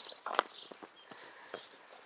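Footsteps crunching in fresh snow, irregular, with one sharper crunch a little under half a second in. A few faint short high chirps sound over them.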